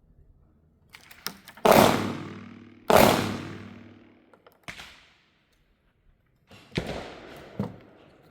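.410 revolver shotgun fired twice, about a second and a quarter apart, each shot ringing out and fading over a second or so. Lighter clicks and knocks of gun handling come before and after the shots.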